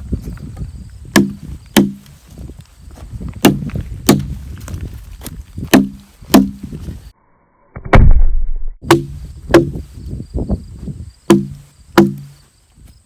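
Sharp knocks with a short low ringing, coming in pairs about half a second apart and repeating every two seconds or so, with one heavy low thump about eight seconds in.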